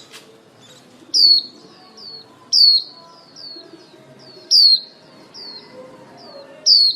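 Female white-eye (chim khuyên) giving high, down-slurred twittering 'líu' calls: a loud note about every two seconds, each followed by a quick string of softer, similar falling notes. It is a lure call used to draw in male white-eyes.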